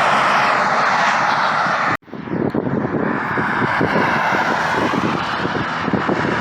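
Highway traffic going past: a steady rush of tyre and engine noise. It cuts out for an instant about two seconds in, then comes back rougher and rumbling.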